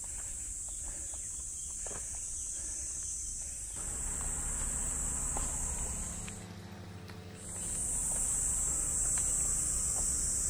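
Insects trilling steadily in one high, even drone. It drops out about six and a half seconds in and comes back a second later.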